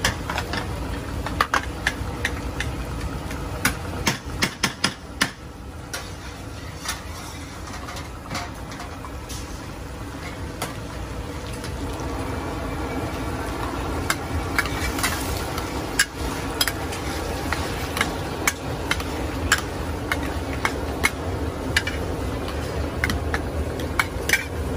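Stir-frying in a wok: a metal spatula clanks and scrapes irregularly against the pan over a steady sizzle.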